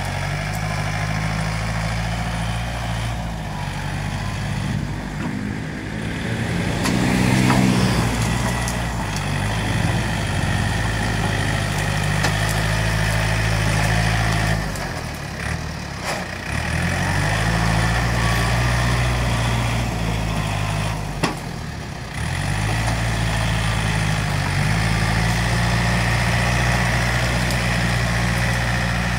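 Yanmar EF514T tractor's diesel engine running as the tractor works through cut brush. It revs up about seven seconds in and eases off briefly twice, around halfway and about three-quarters through. A sharp click comes just before the second dip.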